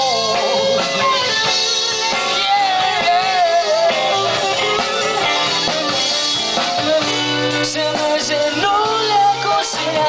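Live rock band playing through a PA: electric guitars, bass and drum kit, with a bending lead melody line over the band.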